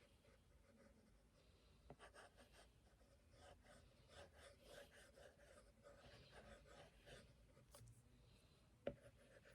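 Faint scratching of a drawing tool across a surface in short, irregular strokes. There is a light tap about two seconds in and a sharper tap near the end.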